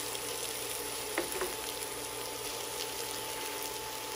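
Chicken thighs sizzling steadily in hot oil with onion and garlic in a nonstick pan as they brown, with a couple of light clicks a little over a second in.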